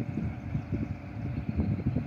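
Wind buffeting the microphone in irregular low gusts, over the low running of a diesel locomotive moving slowly.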